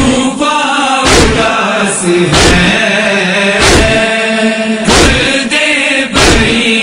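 Noha lament: voices chanting a drawn-out mournful refrain over a steady beat of heavy thumps about every second and a quarter.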